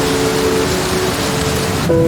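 Steady rain falling, a dense even hiss, with soft sustained musical notes held underneath that change to a new chord near the end.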